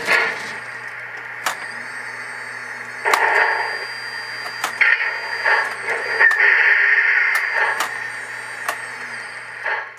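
Synthesized steam-locomotive standing sounds from a QSI QS2 Plus sound board in a Williams brass GS-4 model locomotive, played through its small speaker. Under a steady hum there are sharp clicks and several hissing bursts, the longest from about six to eight seconds in.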